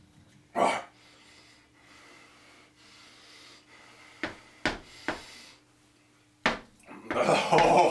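A man breathing hard and snorting, with a sharp burst of breath about half a second in, a few short clicks in the middle, and a louder strained, breathy groan near the end: a man gagging after a mouthful of cat feces.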